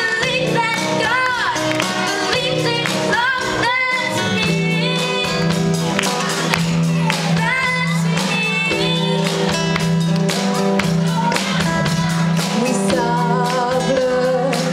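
A live band with a drum kit plays while a girl sings lead into a microphone. Her voice is clearest in the first few seconds, and a steady low note holds underneath from about four seconds in.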